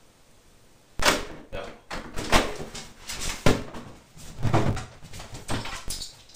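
Rummaging on a wooden dresser: objects knocked, shifted and rustled about in an irregular string of knocks and thuds, starting about a second in.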